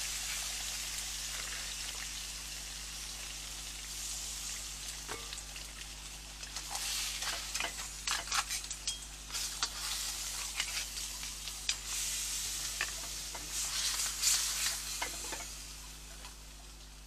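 Crab and vegetables sizzling as they fry in a pan. The sizzle is strongest at first and fades over the first few seconds. From about six seconds in, a utensil scrapes and clicks against the pan as the food is stirred, and this dies down near the end.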